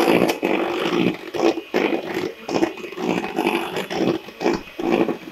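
Electric hand mixer running, its beaters whipping thick chocolate mousse in a stainless steel bowl. The motor hum swells and dips over and over as the beaters are worked around the bowl.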